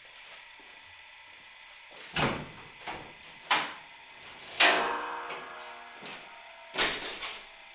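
Knocks and clunks from the car's door and hood being worked: five separate hits, the loudest about halfway through, leaving a short metallic ring.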